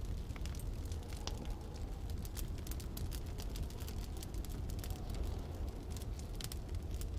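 Wood fire crackling, with many small sharp pops several times a second, over a steady deep rumble of snowstorm wind.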